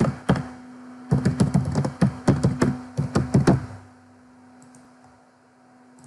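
Typing on a computer keyboard: two single key clicks at the start, then a quick run of keystrokes from about a second in until about three and a half seconds in.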